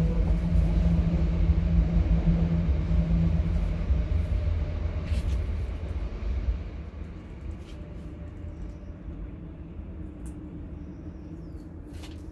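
Low rumble of a passing vehicle with a steady hum, loudest in the first few seconds and fading away about halfway through.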